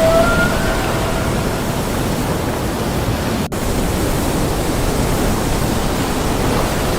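Steady rushing water noise, like ocean or underwater ambience, with a split-second dropout about halfway through.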